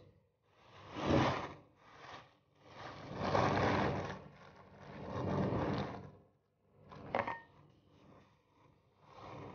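Thin plastic bag rustling and crinkling in repeated bursts as it is handled and pulled open, with a short sharper crackle about seven seconds in.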